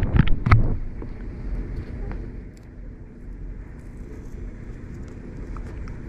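A few sharp clicks and knocks in the first second, then a steady low hum.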